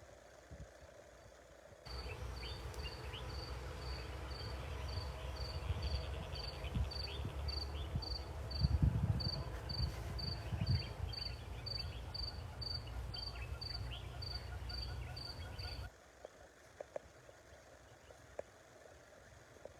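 An insect, cricket-like, chirping in a steady rhythm of about two high, even-pitched chirps a second, over a low rumble. It starts about two seconds in and cuts off suddenly a few seconds before the end.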